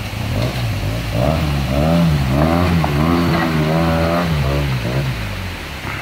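Arctic Cat Wildcat Sport XT side-by-side's engine revving up and down again and again as it crawls over rocks in a creek bed, dying away about five seconds in. The creek's water rushes steadily underneath.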